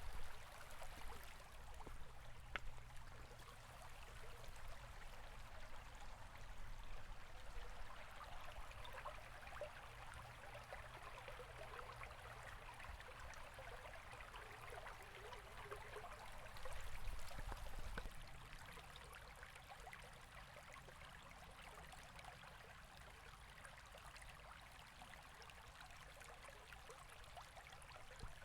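A river or stream flowing steadily, with fine trickling and splashing detail. It swells briefly a little past the middle.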